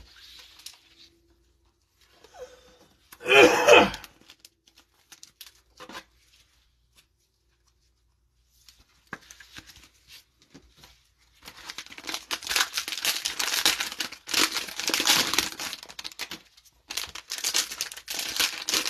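Crinkly plastic cellophane wrapper of a football trading-card cello pack being torn open and crumpled by gloved hands, loud and continuous over the second half. About three and a half seconds in there is a short, loud vocal sound, and light handling clicks are scattered through the first part.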